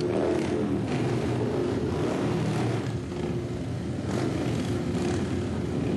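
Motorcycle engines running steadily, a dense low rumble with no rise or fall in revs.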